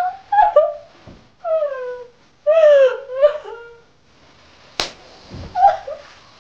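A woman crying out in pain in a string of high, wavering wails and sobs, as her fingernails are being pulled out. About five seconds in comes a single sharp smack.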